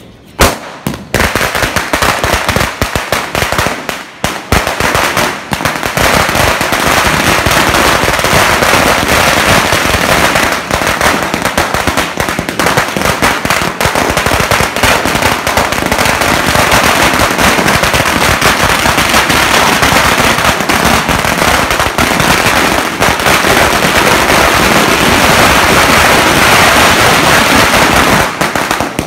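A 5000-wala firecracker string (a long chain of small firecrackers) going off in rapid succession, a dense continuous rattle of bangs. It starts with a loud bang about half a second in, has a few brief lulls in the first five seconds, then runs on without a break.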